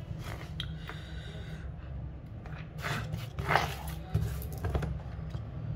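A hand brush swept across a workbench in a few scraping strokes, over a steady low hum.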